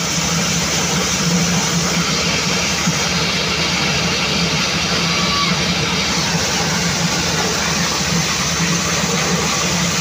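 Diesel-powered mobile corn sheller running steadily under load, its engine and shelling drum working through husked corn in one dense, unbroken mechanical noise.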